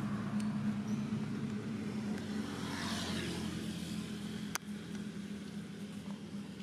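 Steady low hum of a motor vehicle's engine running, easing off slightly in the second half, with one sharp click about four and a half seconds in.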